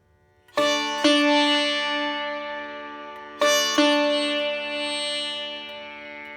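Background music on a plucked string instrument: two pairs of notes, each struck sharply and left to ring out and fade slowly, starting just after a silence.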